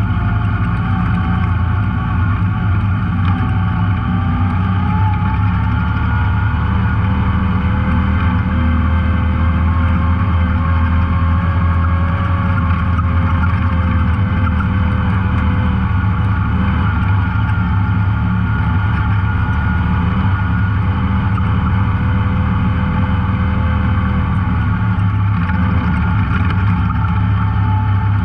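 Off-road vehicle engine running steadily while under way on a dirt trail: a strong low drone with a faint whine that drifts slowly up and down in pitch.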